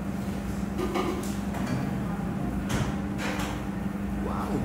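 Light clicks and knocks of a fork and bamboo skewers against a plate during eating, a few scattered strikes over a steady low hum.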